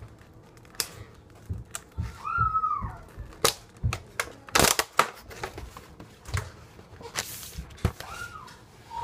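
Kitchen food-preparation handling while making sandwiches: irregular clicks, taps and knocks with rustling, the loudest clatter about halfway through. Two short high-pitched sounds, about two seconds in and near the end.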